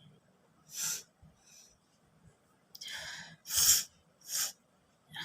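A person's short, sharp breaths and sniffs through the nose, with a quick inhale about three seconds in, followed by a loud sneeze.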